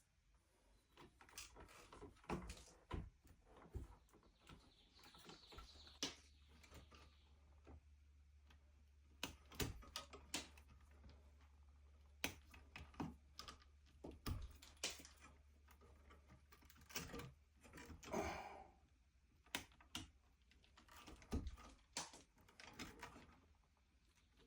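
Irregular light clicks and knocks, as of hands working with tools or hardware at close range, with a faint low hum through the middle stretch.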